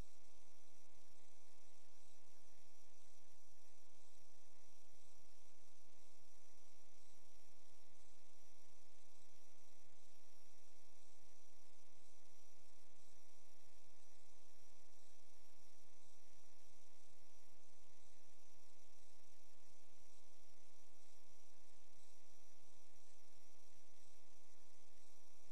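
Steady, unchanging electrical mains hum with many evenly spaced overtones, and a faint high whine and hiss above it.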